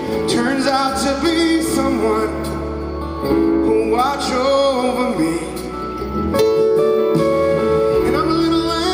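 Rock band playing live in an arena: a male lead vocal sung over electric guitar and the full band, heard from the audience seats.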